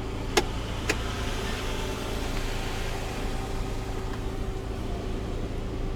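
Car cabin noise: a steady low rumble of the engine and vehicle with a faint steady hum. Two sharp clicks about half a second apart come near the start.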